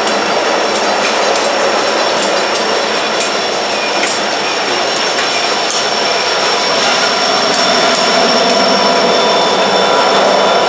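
Diesel freight locomotives passing at close range, among them a GE B40-8W, an EMD SD70ACu and a GE C40-8: engines running and wheels rolling on the rails in a loud, steady mix. A thin, steady high whine runs through it, with irregular wheel clicks on the track.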